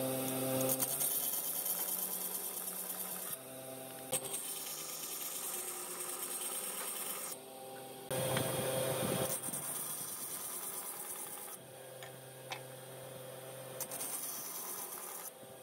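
Band saw running with a steady motor hum, its blade cutting through small wooden blocks in a run of short cuts, each lasting a few seconds, with a couple of sharp clicks.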